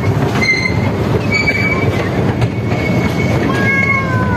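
Miniature ride-on park train running, a steady rumble of carriages on the track with repeated short high-pitched wheel squeals and a squeal gliding down in pitch near the end.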